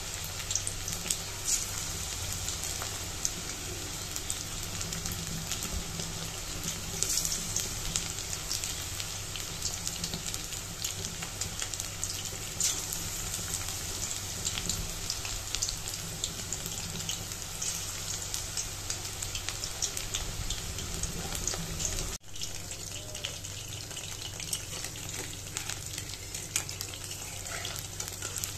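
Battered chicken strips deep-frying in hot oil in a steel wok: a steady sizzle full of fine crackling, with a momentary break about three-quarters of the way through.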